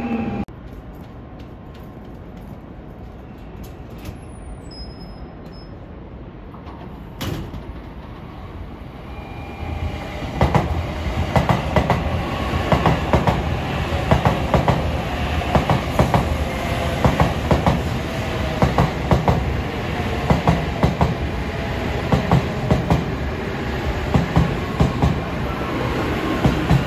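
N700 series Shinkansen running past close by. After a quieter stretch of low rumble, it gets louder about ten seconds in, as the wheels knock over the rail joints in a quick, regular clickety-clack that keeps going.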